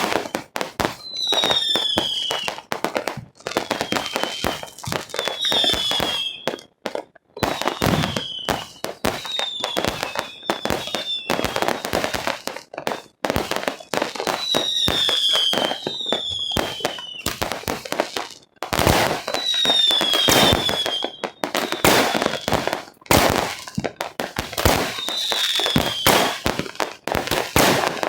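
Fireworks going off in rapid succession: dense, continuous bangs and crackling, with short whistles that fall slightly in pitch every second or two.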